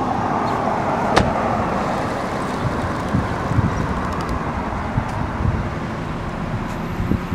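Road traffic noise from a car passing on the street, a steady rush of tyre noise that is strongest in the first two seconds and then holds on. A single sharp click about a second in.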